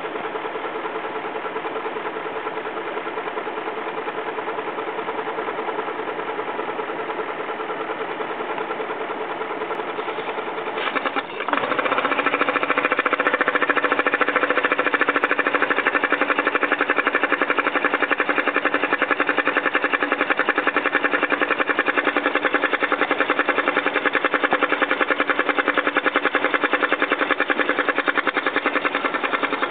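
BMW X5 4.4i's V8 engine idling steadily. About eleven seconds in, the oil filler cap comes off and the sound jumps louder and takes on a fast, even ticking pulse that continues to the end.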